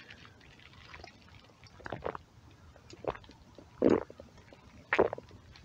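A man gulping beer from a can: four swallows about a second apart, starting about two seconds in.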